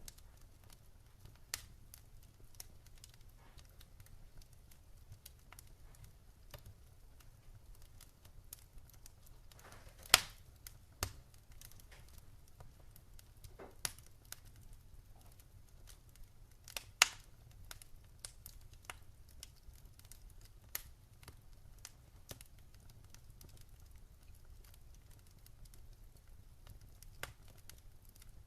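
Wood fire in a fire pit crackling: scattered sharp snaps and pops, with two much louder pops about ten and seventeen seconds in.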